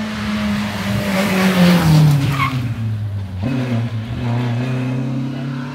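A hill-climb race car passing close at speed, its engine note falling as it goes by, with a brief tyre squeal about two and a half seconds in. The engine note then steps up about three and a half seconds in and holds steady as the car pulls away up the course.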